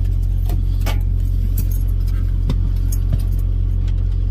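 Semi truck's diesel engine idling with a steady low hum heard inside the cab, with a handful of light clicks and clinks as a plastic jug is handled.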